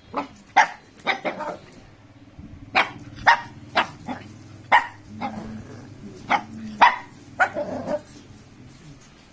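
A Shih Tzu barking in play: about a dozen short, sharp barks at uneven intervals.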